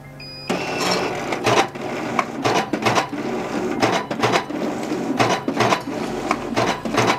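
Electric business card cutter starting up with a short beep at the press of its start key. It then runs steadily as its rollers feed the sheet through the slitting blades, with a sharp chop about twice a second as the cross-cutting blade cuts each row of cards.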